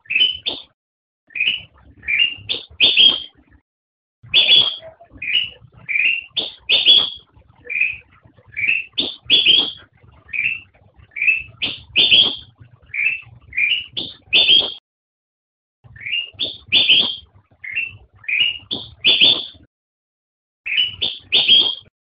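Kutilang emas (Pycnonotus melanicterus), a bulbul, singing: short phrases of quick rising whistled notes, repeated every second or two, with a few brief pauses.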